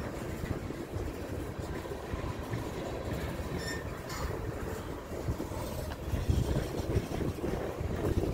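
Loaded railroad tank cars of a freight train rolling past: a steady low rumble of steel wheels on rail, with irregular clacks over the rail joints, a few louder ones about six and seven seconds in.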